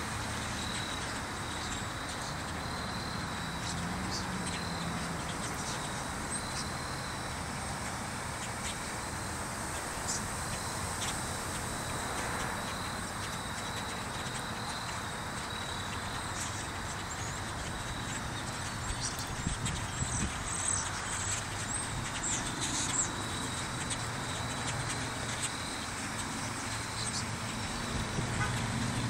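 A huge flock of thousands of birds settling into trees to roost, a dense steady chatter of many calls. Sharper, louder chirps stand out for a few seconds past the middle.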